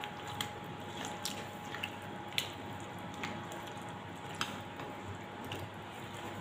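A spoon stirring yogurt-coated boiled chickpeas and potatoes in a glass bowl: wet squishing, with several light clicks of the spoon against the glass.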